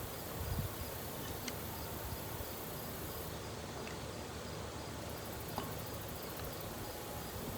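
Steady faint background hiss, with a couple of faint small clicks from hand work on the carburetor's secondary diaphragm cover and its screws.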